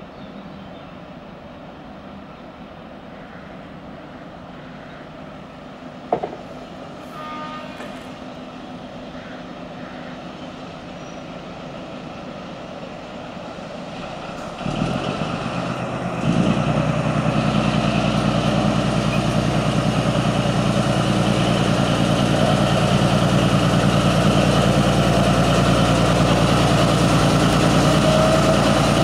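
Diesel shunting locomotive's engine running steadily as it comes close, the engine growing loud in two steps around the middle. Before that, only low steady background with one short sharp sound about six seconds in.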